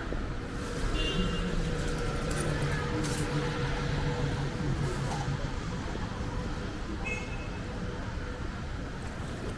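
Street traffic noise: a vehicle's engine hum rising over a steady road rumble in the first few seconds, with a couple of brief high squeaks.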